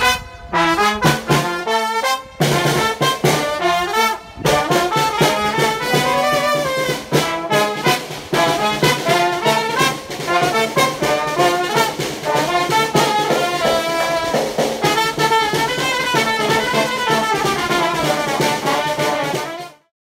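Music led by brass instruments with a steady beat, fading out just before the end.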